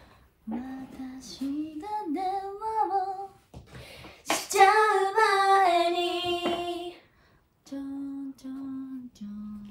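A woman singing a few phrases unaccompanied, with one loud long held note about four seconds in, then humming a few short notes near the end.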